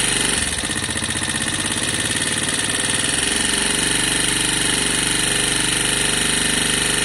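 Lexmoto Valiant motorcycle engine running on its converted carburettor. Its note wavers from about half a second to three and a half seconds in, then settles into a steady idle.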